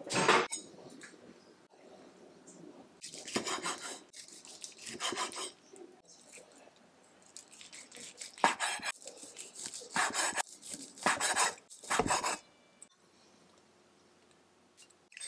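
Kitchen knife slicing cooked beef on a wooden cutting board: several separate scraping strokes of the blade through the meat and against the wood.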